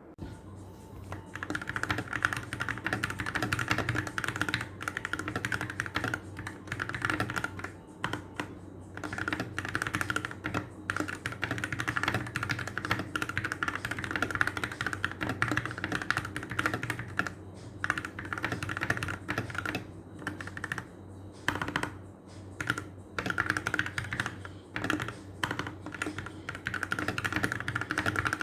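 Typing on a Keychron K14 70% mechanical keyboard: a rapid, continuous run of key clicks with a few brief pauses.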